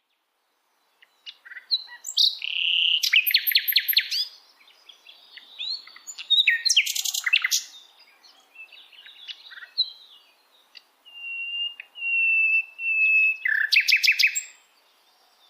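A songbird singing varied phrases: fast rattling trills, quick chirps and clear whistled notes, in three bursts with short pauses between. Late in the song a long steady whistle runs into a fast trill.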